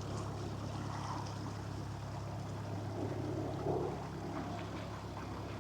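Canal boat's engine running at a steady low drone as the boat passes by.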